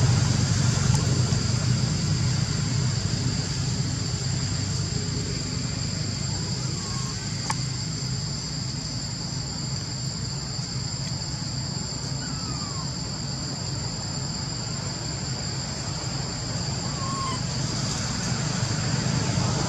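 Outdoor ambience: a steady low rumble under a steady high-pitched insect drone, with a few faint short chirps and a single click about halfway through.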